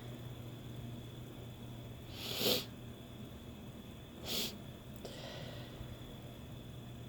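A person sniffing hard through the nose after taking chhinkni sneezing powder, trying to bring on a sneeze that does not come. There are two sharp sniffs about two seconds apart, then a fainter one.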